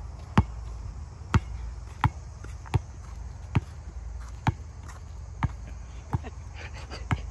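Basketball being dribbled on a hard outdoor court: a slow, steady dribble of nine bounces, about one a second.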